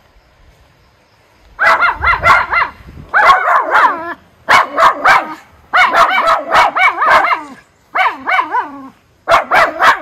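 Miniature schnauzers barking, high-pitched and fast, in about six bursts of several quick barks each, starting about a second and a half in.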